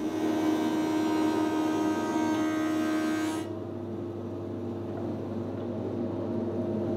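Jet 12-inch combination jointer/planer with a helical cutterhead, set up as a thicknesser, planing a board: a steady motor drone with the higher rasp of the cut for about the first three and a half seconds, then the machine running on with no cut.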